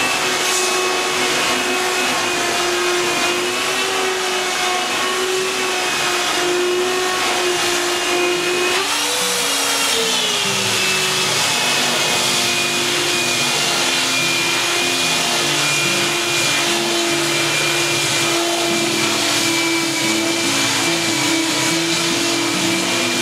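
Electric belt sander with a coarse belt and vacuum dust extraction running steadily, grinding old epoxy laminate off a boat hull. Its steady whine rises briefly about nine seconds in, then settles back.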